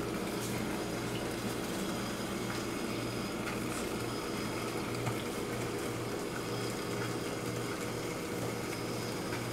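Water in a titanium mug heating over a DIY beer-can alcohol stove, just short of a rolling boil: a steady hiss, with a low steady hum underneath.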